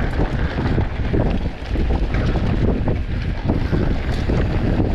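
Wind buffeting the microphone of a mountain bike at speed on a dirt trail, over tyre rumble and a run of small knocks and rattles from the bike on bumps.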